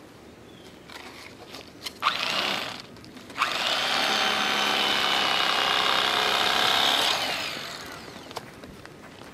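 Electric fillet knife running while cutting fish fillets: a short burst about two seconds in, then a steady run of about four seconds that dies away near the end.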